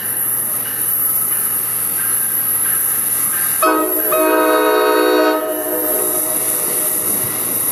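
Horn of an approaching NJ Transit Multilevel cab car, a Nathan K5LA chime air horn, sounding one held chord blast of just under two seconds about halfway through, over the steady noise of the oncoming train.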